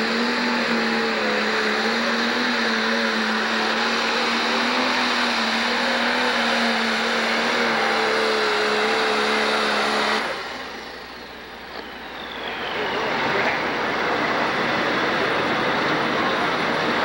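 Pro stock pulling tractor, a 7250 International Harvester with a single-turbo diesel, running flat out as it drags the sled: a loud, steady, pitched engine drone. About ten seconds in the sound drops away suddenly, then builds back as a rougher, noisier engine sound.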